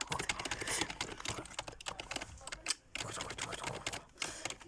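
Rapid typing on a computer keyboard: a dense run of key clicks, pausing briefly twice.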